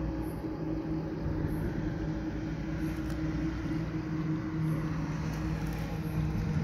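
Steady low mechanical hum of a running engine or motor, with an unchanging drone throughout.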